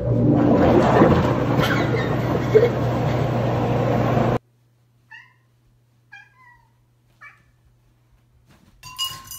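A loud, steady rushing noise with a low hum, which cuts off suddenly about four and a half seconds in. Then a cat meows briefly three times, and a louder sound comes near the end.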